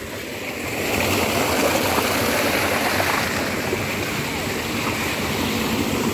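Tubewell outlet gushing water into a concrete tank: a steady rush of splashing water that grows louder about a second in.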